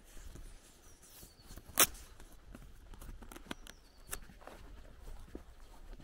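Footsteps of someone walking on a dirt path, with a few short bird chirps. One loud sharp click comes about two seconds in.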